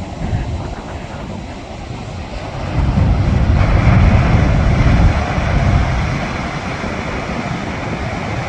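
Heavy ocean surf breaking and rumbling, with wind buffeting the microphone. The rumble and surf hiss swell louder from about three seconds in and ease off after about six seconds.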